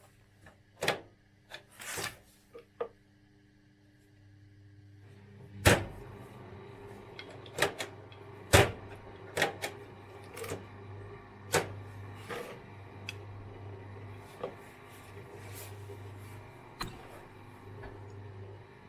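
Zanussi IZ 16 S washing machine running into its final spin: a low, steady motor hum sets in about four seconds in, with irregular sharp knocks and clicks throughout.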